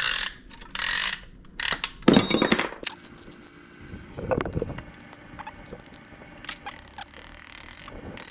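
Piston ring compressor being worked around a piston: metal rasps and clicks and a short metallic squeal in the first few seconds. These are followed by lighter sharp taps as the piston is driven through the compressor into an LS1 V8 block's bore with a hammer handle.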